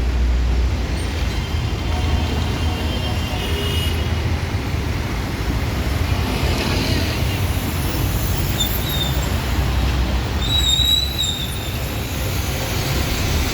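Steady low rumble of vehicle and traffic noise, with a few brief high squeaks about nine and eleven seconds in.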